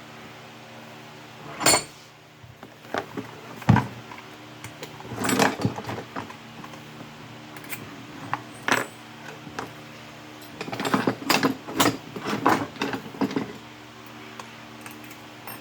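Scattered metallic clinks and clatters of tools and small metal parts being handled, with a denser run of clatter about two thirds of the way through, over a faint steady hum.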